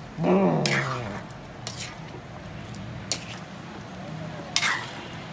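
A metal spoon scrapes and clinks against a wok a few times, stirring chunks of squash in coconut milk. A brief voice sounds near the start.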